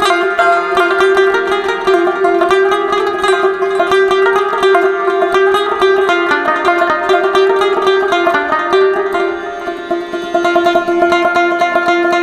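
Background music: fast picked plucked-string instrument music, in the style of a banjo or mandolin, with a steady busy rhythm of notes.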